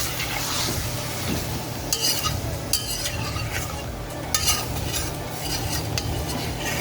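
Chicken frying in a pot, sizzling steadily, as it browns in the caramelized sugar and curry for stew chicken. A spoon stirs it, with a few short scrapes and knocks against the pot.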